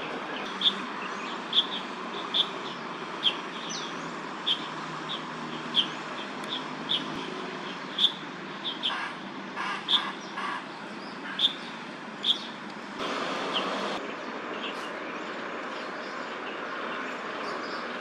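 A squirrel calling from farther off: a series of short, sharp, high chirps about once a second that stops about twelve seconds in, over steady background noise.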